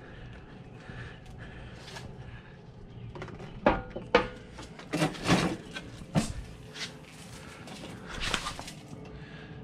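A few sharp knocks and clunks in the middle, then a short clatter near the end, from hardware being handled while fitting a winch.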